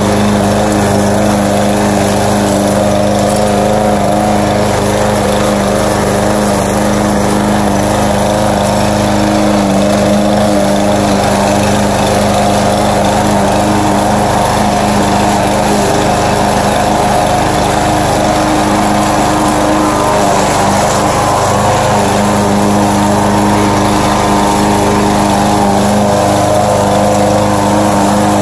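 Walk-behind rotary lawn mower's small gas engine running at a steady, constant speed while cutting grass: a loud, even engine drone.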